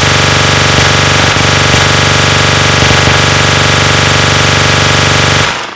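A loud, continuous rapid-fire machine-gun sound effect, dubbed in, that starts suddenly and fades out near the end.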